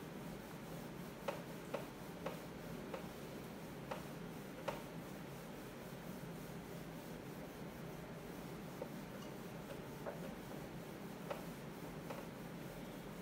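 Faint, irregular clicks and taps, about ten of them, bunched in the first few seconds and sparser later, over a steady low hiss.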